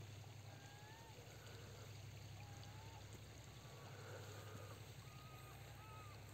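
Near silence on a riverbank: faint flowing river water under a steady low hum, with a few short, faint whistled bird notes, several of them together near the end.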